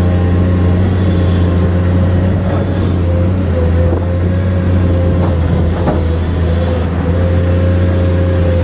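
Komatsu PC210 hydraulic excavator's diesel engine running steadily under working load as it digs sand, a low drone with a steady high-pitched whine above it.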